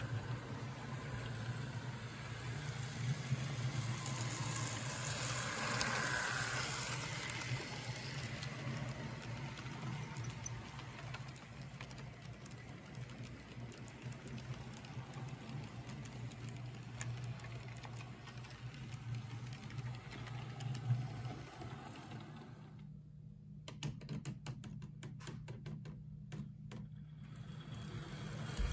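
Electric model trains running on three-rail track: a steady low motor hum under the rattle of wheels rolling over the rails as the cars pass close by. Near the end the rolling noise drops away for a few seconds, leaving a run of faint clicks.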